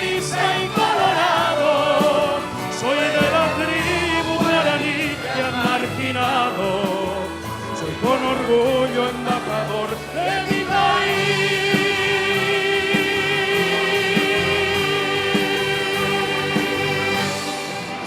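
Youth orchestra, children's choir and male soloist singing the closing phrase of a Paraguayan song, ending on one long held final chord with vibrato for the last seven seconds or so, which cuts off sharply at the end.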